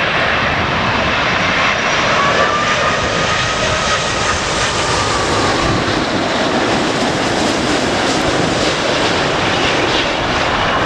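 Jet airliner passing close, a British Airways Boeing 787: steady jet engine noise with a faint whine that bends slightly in pitch as it goes by.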